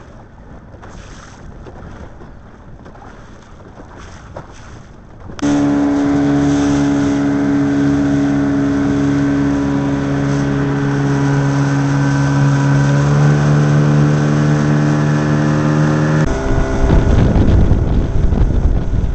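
Wind and water noise at first; about five seconds in, an outboard motor cuts in suddenly, running steadily at one pitch. Near the end it gives way to loud wind on the microphone and rushing water as the motorboat travels at speed.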